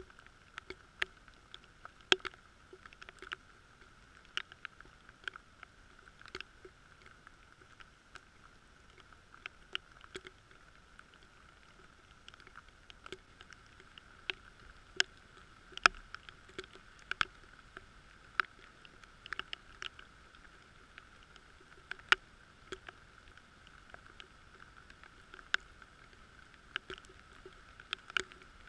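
Raindrops ticking irregularly against a waterproof camera housing, muffled, with scattered sharper taps over a faint steady hum.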